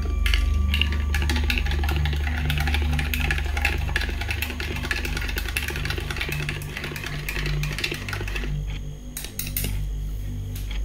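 Spoon stirring coffee in a mug: rapid clinking and scraping against the sides for about eight seconds, then a few sharper clinks near the end. Background music with a deep bass pulse plays throughout.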